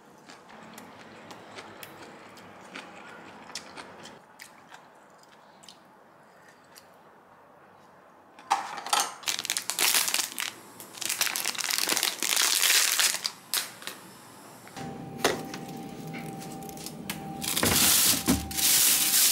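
Plastic wrappers crinkling loudly as they are handled, starting about halfway through, then plastic bags rustling as hands rummage in a freezer drawer. A steady high tone comes in partway through the rustling.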